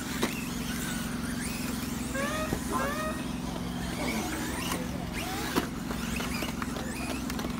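Electric RC cars running, their motors whining in short rising bursts over a steady low hum, with a few sharp clicks.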